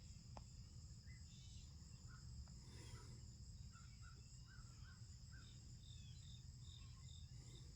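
Near silence with a faint, steady high-pitched insect trill in the background and a few soft, short chirps around the middle.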